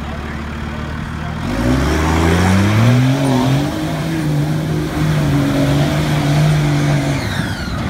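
Dodge Ram's 5.9 Cummins inline-six turbodiesel idling, then revving hard about a second and a half in. It is held at high revs with the tyres spinning through a mud hole and spraying mud, and the revs drop near the end.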